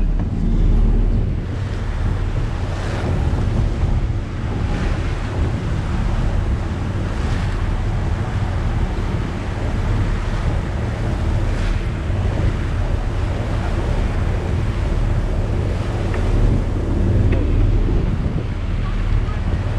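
Motor yacht under way: a steady low engine drone, with wind buffeting the microphone and water rushing along the hull.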